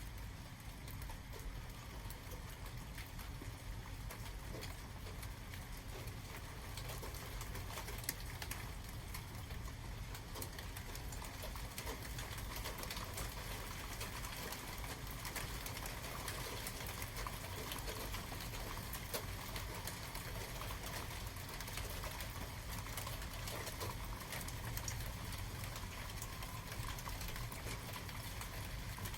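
Steady rain, with many small ticks of drops hitting a surface over a low, even rumble.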